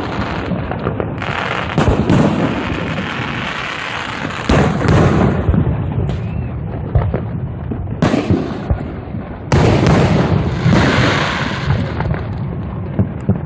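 Large aerial fireworks display: shells bursting one after another in loud booms, each trailing off in reverberation, over continuous crackling.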